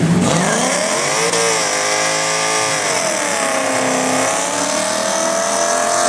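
Chevrolet Camaro Z28's LS1 V8 accelerating hard at full throttle, its pitch climbing for about a second and then dropping and rising again as the automatic shifts.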